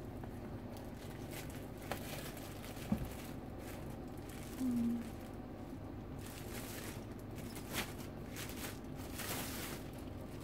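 Clear plastic wrap crinkling and rustling as it is handled and pulled off a framed plaque, in scattered bursts that grow busier in the second half. A short low hum about halfway through is the loudest sound.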